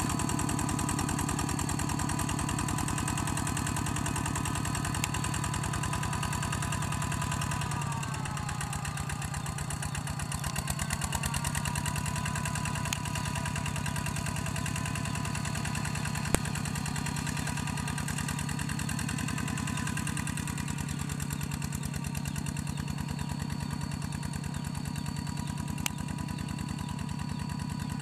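Single-cylinder diesel engine of a two-wheel walking tractor running steadily as its cage wheels churn through a muddy paddy. The engine note sags about eight seconds in and picks back up a few seconds later. There is a single sharp click partway through.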